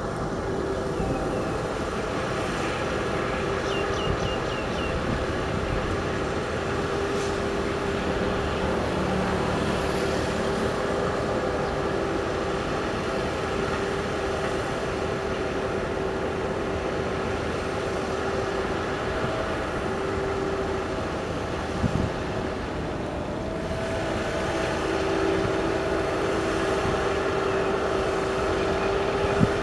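Heavy diesel machinery running steadily with a constant tone, and a single short knock about twenty-two seconds in.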